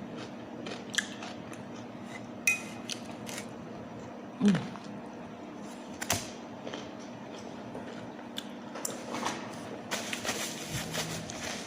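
Close-up eating sounds: scattered soft clicks, smacks and chewing noises from someone eating chicken wings, with a short murmur about four and a half seconds in and some rustling near the end. A faint steady hum sits underneath.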